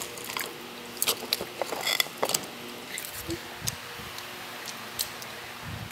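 Handling noise from a handheld phone being swung about: scattered light clicks and knocks, the sharpest about one and two seconds in, with a few dull low thumps.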